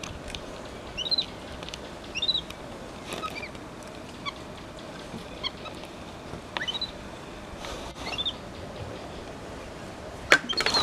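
Short high-pitched chirping calls, about one every second, over a steady background hiss, with a couple of sharp knocks near the end.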